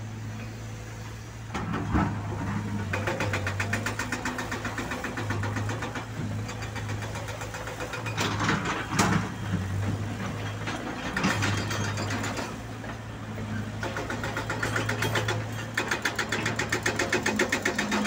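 Excavator diesel engine running with a steady low hum, overlaid by repeated bursts of rapid, evenly spaced metallic clattering that come and go every few seconds.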